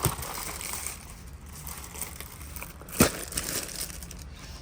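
Packaging of frog lures crinkling and rustling as they are handled one by one, with a sharp knock about three seconds in.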